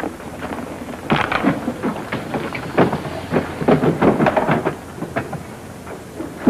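A run of irregular thumps and knocks as suitcases and boxes are handled and loaded into a car, heaviest between about one and five seconds in.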